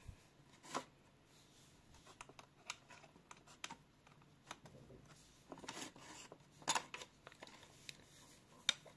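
Faint rustling and scattered light clicks, with sharper clicks about a second in, near seven seconds and near the end.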